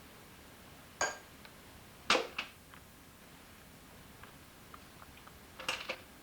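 A few light clicks and knocks of small hard objects being handled, one about a second in, two close together just after two seconds and a short cluster near the end.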